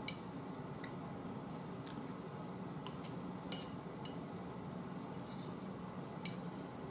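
Metal fork clicking against a plate while scooping up food: a few sharp, separate clicks spread over several seconds, the loudest about three and a half seconds in, over a steady low background hum.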